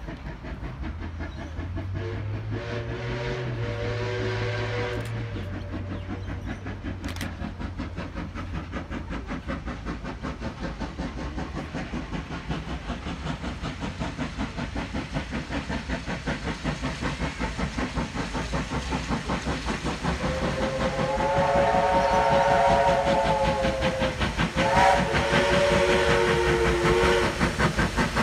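Two steam locomotives, NSWGR C35-class 3526 and D59-class 5917, double-heading and approaching. Their quick, even exhaust beats grow louder throughout. A steam whistle sounds faintly a few seconds in, then two long chime whistle blasts come near the end.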